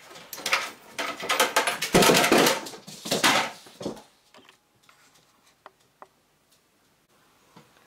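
Rapid clicking and clattering of hard plastic and loose rubber bands being handled at a plastic band loom for about four seconds, then only a few scattered clicks.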